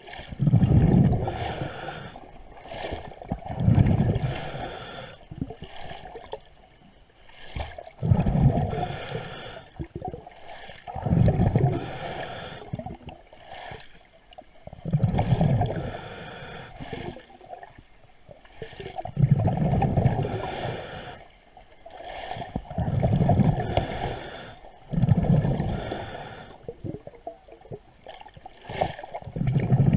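A diver breathing underwater: exhaled bubbles gurgle in bursts about every four seconds, with quieter stretches between them.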